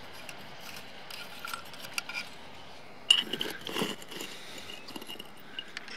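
Small lumps of charcoal clinking and scraping as they are scooped out of a glass jar and pushed into the brass firebox of a live-steam model locomotive with a thin metal rod. There are scattered light clinks, and a louder cluster about three seconds in.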